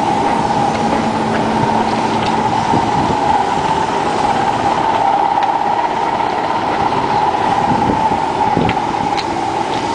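Steady running noise of a standing passenger train: a loud, even hum with a constant whine held throughout, and a few faint clicks.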